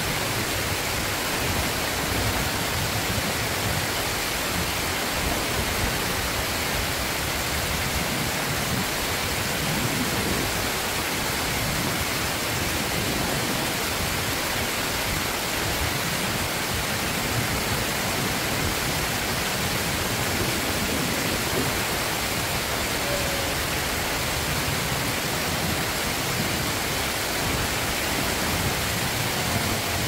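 Water rushing steadily over a low concrete weir and through shallow rapids, a constant even roar.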